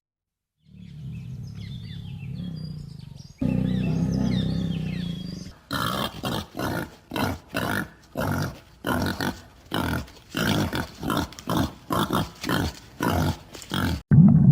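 Animal calls: a low rumbling call with faint high chirps above it, then a louder low call, then a quick run of short calls, about two a second, that stops abruptly near the end.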